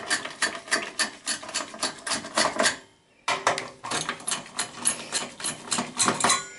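Phillips screwdriver turning out the processor heatsink screws: a quick run of small metallic clicks and scrapes from the tip working in the screw head, with a short pause about halfway through.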